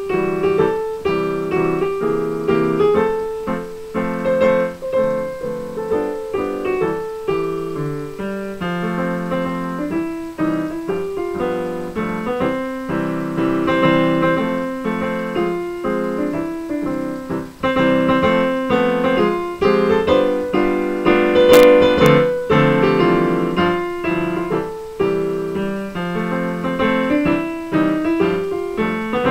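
Piano played with both hands in a continuous run of chords and melody. The music breaks off briefly partway through, then comes back louder.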